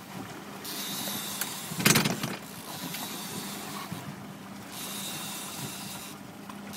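A fishing boat's engine running steadily over the hiss of wind and water, with a loud short rush of noise about two seconds in.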